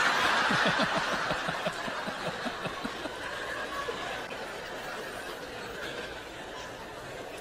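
A large audience laughing at a joke's punchline. The laughter swells at once and then slowly dies away.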